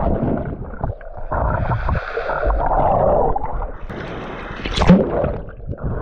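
Sea water heard underwater through the camera's microphone as a swimmer dives and swims: muffled bubbling and gurgling rushes of water, with a brighter splashing burst just before five seconds in.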